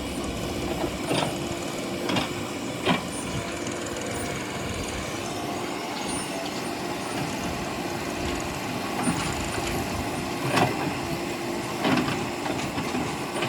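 Heavy diesel machinery running steadily, with several sharp metallic knocks: three in the first few seconds and two more near the end.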